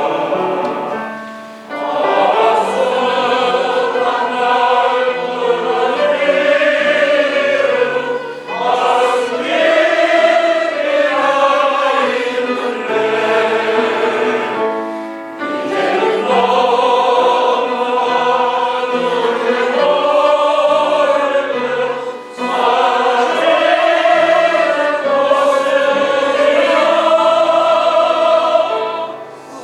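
A group of voices singing a Korean art song together in long, legato phrases, with short breaks between phrases.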